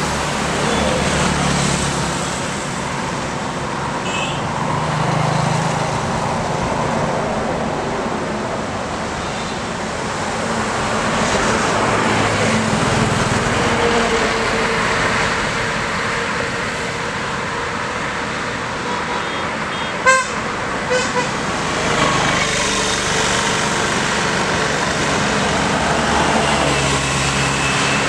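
Road traffic passing on a highway: motorcycles, cars and trucks going by, the tyre and engine noise swelling and easing as each passes. About twenty seconds in, a vehicle horn gives one sharp toot, then a couple of quicker, quieter beeps.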